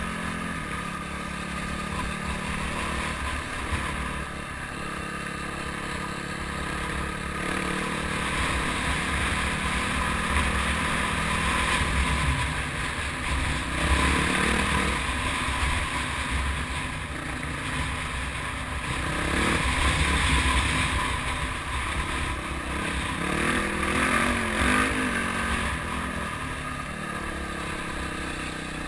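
Engine of an off-road vehicle ridden along a dirt trail, running steadily with the revs rising and falling as it speeds up and eases off, several surges over the stretch. A low rushing noise from wind and the trail runs under it.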